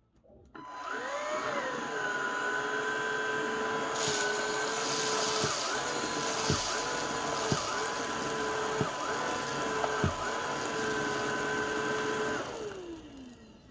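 Xiaomi Shunzao Z11 cordless stick vacuum switched on: its motor spins up with a quick rise in pitch, then runs at a steady whine. A hiss joins about four seconds in, the pitch dips briefly about five times, and the motor winds down with a falling pitch as it is switched off near the end.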